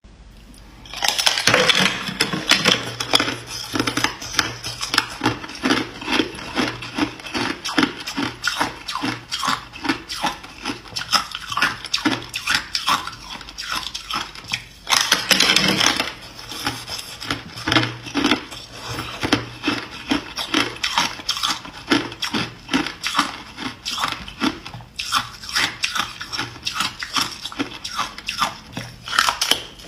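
Hard clear ice being bitten and chewed close to the microphone: dense, rapid crunching and cracking starting about a second in, with a louder run of crunches around the middle.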